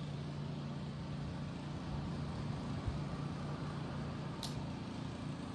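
Ocean surf making a steady low rumble and wash. A short high-pitched chirp comes about four and a half seconds in.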